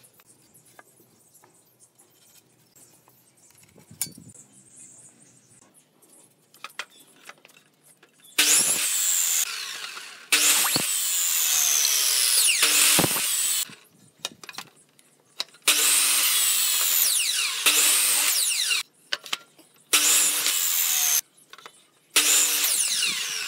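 Electric miter saw cutting wooden boards in five loud bursts over the second half, each a motor whine with the blade tearing through the wood and the pitch falling away as the blade spins down. Before that, only a few light knocks from handling the wood.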